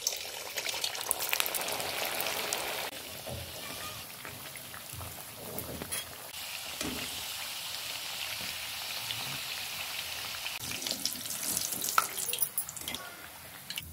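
Sabudana vadas deep-frying in hot oil in a steel kadhai, a steady sizzle that swells again about six seconds in as more patties go into the oil. Sharp clicks of a spatula and a wire skimmer against the pan come through it, the loudest near the end.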